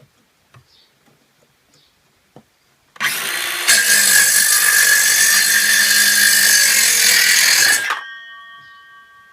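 BLACK+DECKER 20V MAX cordless circular saw starting up about three seconds in and cutting straight across a 2x4, loud and steady for about four seconds. The trigger is then released and the blade spins down with a fading whine.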